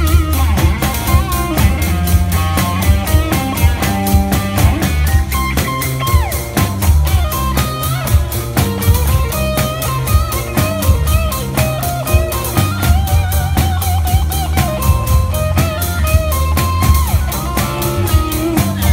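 Live electric guitar playing lead lines with bent, wavering notes over a steady beat from a small drum kit played by a mechanical skeleton drummer.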